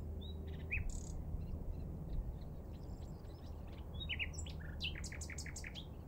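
Common nightingale singing: a few short, scattered whistled notes, then in the second half a fast run of repeated notes, about six a second. A steady low rumble lies underneath.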